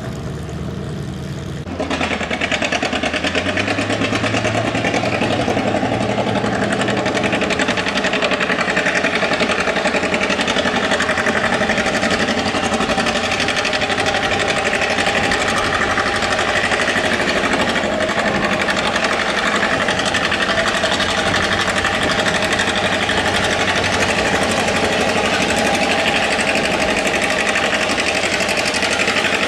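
Antique John Deere two-cylinder tractor engine running steadily under load while pulling a weight-transfer sled, with an even, rapid exhaust rhythm. It gets louder about two seconds in.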